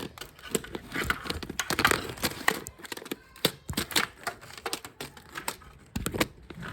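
Hard plastic clicking, clacking and rattling at an irregular pace, as a 3D-printed mechanical claw hand grips and handles a plastic Lego truck.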